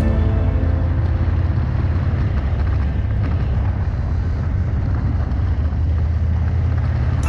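Motorcycle running steadily at road speed: a constant low engine drone mixed with wind noise on the microphone.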